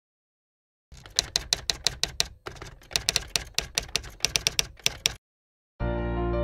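Typewriter keystroke sound effect: a quick, uneven run of key clacks lasting about four seconds. After a short gap, music with held notes starts near the end.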